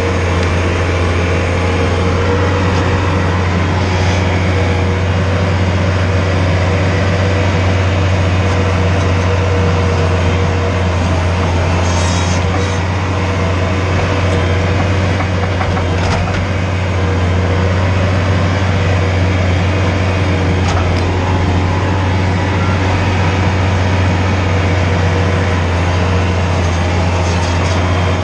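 Skid steer engine running steadily at one pitch, with a few faint knocks here and there.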